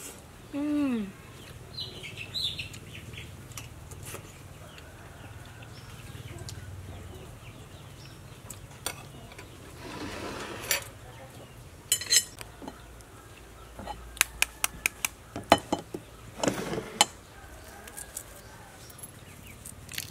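A spoon tapping and clicking against a ceramic plate during eating, with a run of sharp clicks about two thirds of the way in. A short falling pitched sound comes just before the first second, and small birds chirp faintly.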